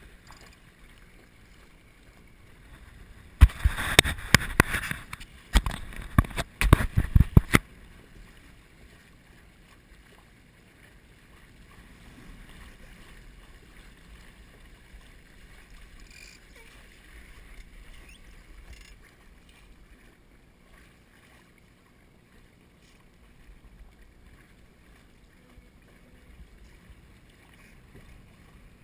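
Laser sailing dinghy under way through choppy water: a low, steady wash of water against the hull. From about three and a half to seven and a half seconds in, a loud spell of sharp knocks and rushing noise stands out.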